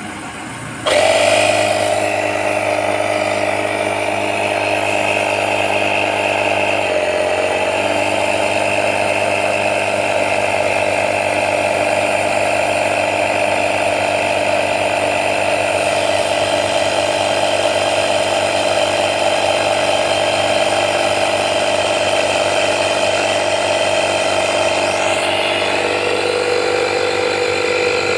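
AGARO 120-watt portable digital tyre inflator's electric air compressor switching on about a second in and running steadily as it pumps up a motorcycle tyre toward its preset pressure. Its pitch drops slightly about seven seconds in.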